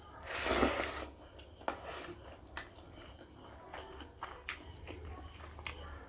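Close-miked mouth sounds of eating rice by hand: a loud, breathy burst as a handful of rice is pushed into the mouth about half a second in, then chewing with scattered wet mouth clicks and smacks.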